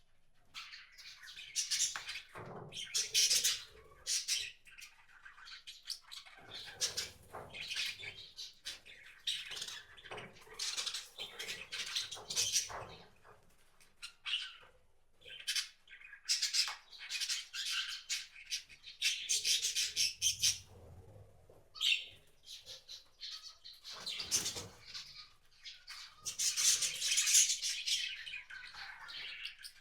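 Small wild birds calling, with short chirps and harsher squawks in quick clusters that come and go, and a couple of brief lulls.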